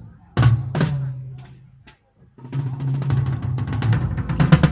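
Drum kit played live: two loud hits in the first second, then after a short pause a fast run of strokes that grows stronger toward the end, with a low ringing tone under the hits.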